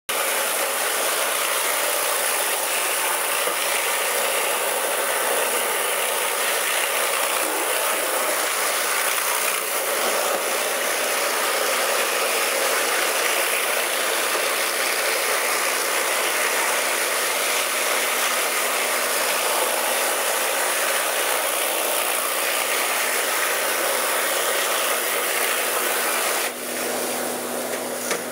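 Hot-water pressure washer's rotary surface cleaner running over a concrete floor: a steady, dense hiss of spray under its hood, briefly quieter near the end.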